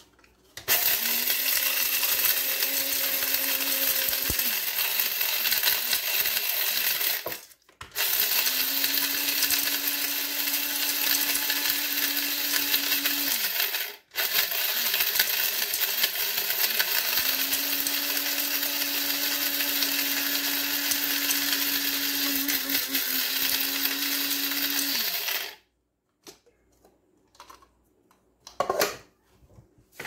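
Small electric blade coffee grinder grinding dried Glass Gem corn kernels into cornmeal: a loud motor whine with the kernels rattling inside. It runs in three stretches with short stops about 8 and 14 seconds in, then shuts off a few seconds before the end, followed by a few clicks and a knock.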